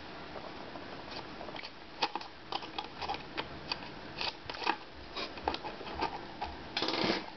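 Small screwdriver working the screws out of a netbook's plastic bottom case: a run of small irregular clicks and ticks of the driver bit and screw, with a louder scraping rustle of the case near the end.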